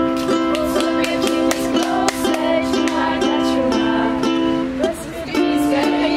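Ukulele strummed in a steady rhythm, accompanying a group of young women singing together; the music breaks off briefly about five seconds in, then resumes.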